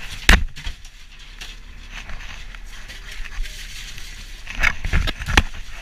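Ice and fish being handled in a fishing boat's hold: crunching and scraping of crushed ice, with a sharp knock a moment in and several knocks near the end, over a steady low hum.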